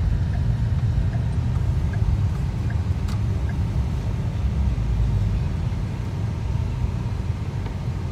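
Steady low rumble of a car driving along an expressway, heard from inside the cabin.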